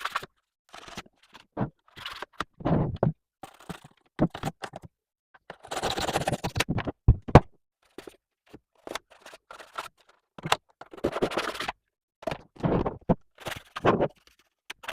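A toothbrush scrubbing the plastic vents of a PS4 console, scratching in short, irregular strokes with brief pauses between them.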